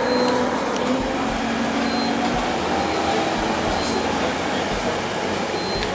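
Cabin noise inside a moving public-transport vehicle: a steady rumble and hiss, with a faint hum in the first couple of seconds and occasional low bumps.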